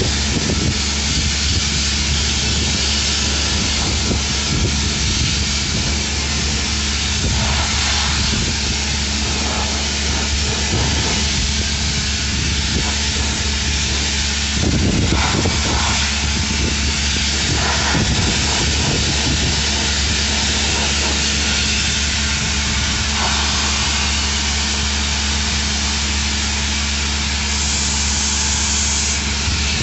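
Sludge-cleaning robot's machinery running with a steady low hum under a constant hiss, with a few brief knocks about halfway through.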